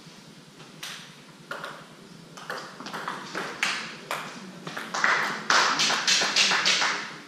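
Table tennis rally: the celluloid ball clicks sharply off the bats and the table, the strokes coming faster as the rally goes on. Near the end comes a louder run of sharp slapping sounds, about three a second, for about two seconds.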